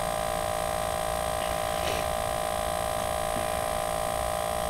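Steady electrical hum: several constant tones held over an even hiss, with no change in level.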